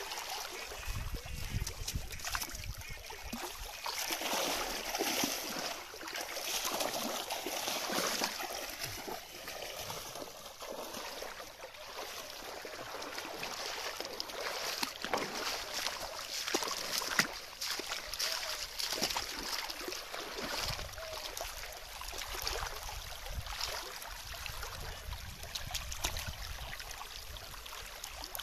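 River water flowing and splashing, with many small irregular splashes, and a low rumble near the start and again towards the end.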